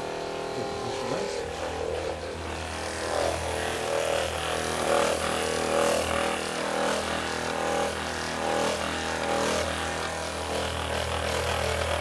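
Handheld percussion massage gun running with a steady motor hum as its head pounds against the back of the shoulder.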